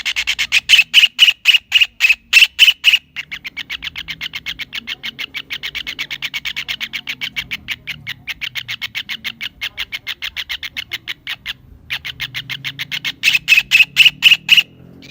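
Kingfisher calling in long series of sharp, evenly repeated notes. A few seconds of loud, spaced notes give way to a faster, softer run of about eight notes a second. After a brief pause, louder notes return near the end.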